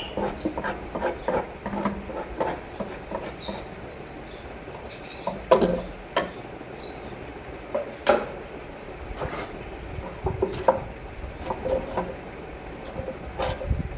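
Irregular knocking and scraping as a bird breeding box is cleaned out, with sharper knocks about five and a half seconds and eight seconds in.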